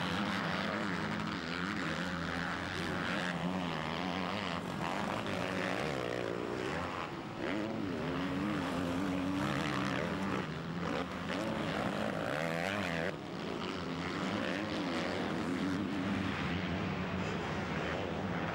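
Motocross motorcycle engines racing on a dirt track, their pitch rising and falling as the riders rev, shift and ease off over jumps and corners.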